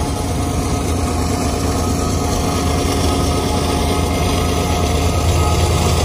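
Norfolk Southern diesel-electric freight locomotives running alongside, a steady low engine drone with a faint steady whine over it. It is mixed with the road noise of a car moving at the train's pace.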